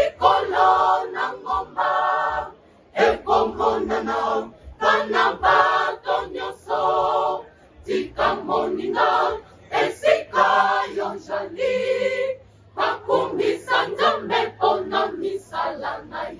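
Mixed choir of women's and men's voices singing a cappella, in sung phrases with a few brief breaks between them.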